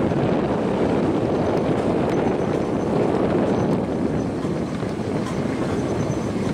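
A vehicle driving slowly over a rough, rocky dirt track: steady engine and tyre noise on the loose stones, with a few faint knocks.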